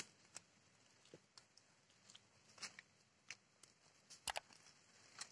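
Near silence, broken by a handful of faint, scattered clicks and crackles, with a slightly louder double click a little past four seconds in.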